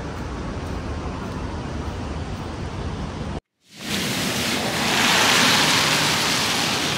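Low, rumbling wind noise on the microphone with city traffic behind it; then, after an abrupt cut, the hiss of car tyres on a wet road, swelling as a car passes and easing off.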